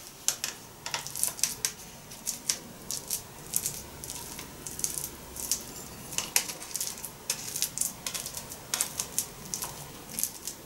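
A spoon scraping and pressing cooked adzuki beans through a fine mesh sieve, in short irregular scratchy strokes several times a second, working the bean paste free of its skins.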